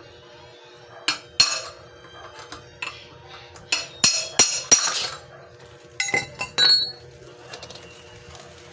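Steel parts clinking and knocking as they are handled, in a cluster of sharp strikes near the middle, followed about six seconds in by a short ringing clatter.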